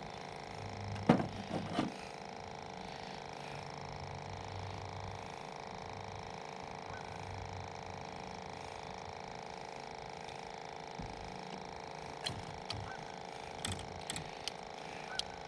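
A steady hum of several even tones, with a quick cluster of knocks and clicks about a second in and a few scattered clicks near the end.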